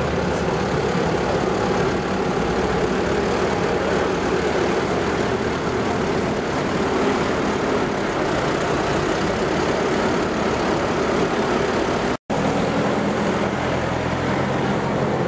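Large farm tractor's diesel engine running steadily as it drives slowly past close by, towing a parade-float trailer. The sound cuts out for an instant about twelve seconds in.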